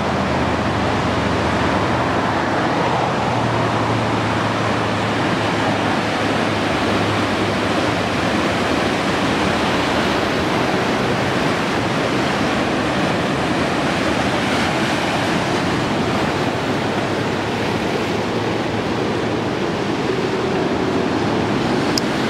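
Ocean surf: waves breaking and washing up the shore in a steady, unbroken rush of noise.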